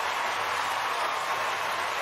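Steady, even hiss with no distinct events in it.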